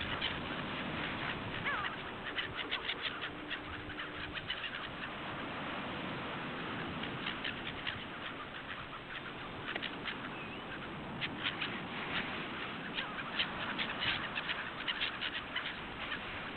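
Gulls calling, many short sharp calls over a steady rushing background noise.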